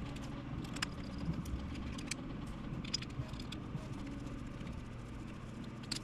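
Scattered faint clicks and ticks of a small screwdriver and fingers working screws out of a SwitchBot's small plastic housing, over a steady low hum.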